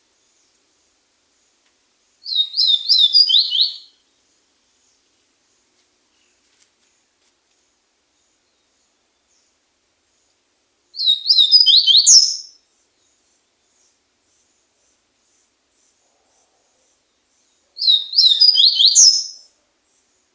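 Coleiro ardesiaco seedeater singing: three short, fast phrases of quick down-slurred whistled notes, each ending on a higher note, with pauses of several seconds between them.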